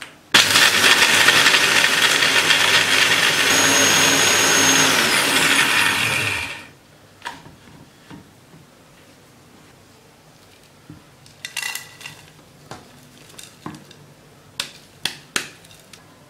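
Countertop electric blender dry-grinding roasted nuts and seeds into a coarse powder: it starts suddenly, runs loud and steady for about six seconds, then cuts off. After it come scattered light clicks and knocks.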